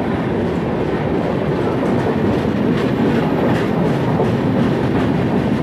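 Passenger train's sleeper coaches rolling past close by, a steady loud rumble of wheels on rail with a faint clickety-clack of wheels over rail joints, as the train picks up speed on departure.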